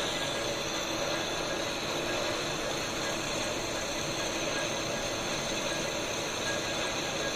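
Lathe machining a cast bearing: the machine runs steadily with a dense cutting noise and a few steady tones, unchanged throughout.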